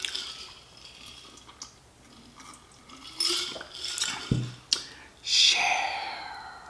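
Mouth and table noises while drinking from a glass mason jar: small clicks and sips, then the jar set down on the table with a low knock about four seconds in. A louder breathy noise from the mouth comes about a second later.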